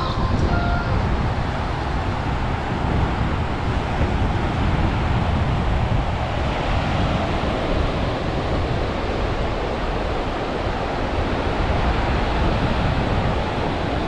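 Ocean surf washing onto a beach, a steady rushing noise, with wind buffeting the microphone.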